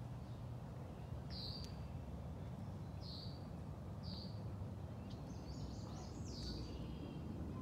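Birds calling: three short high chirps spaced a second or two apart, then a quick run of stepped notes about five seconds in, over a steady low rumble.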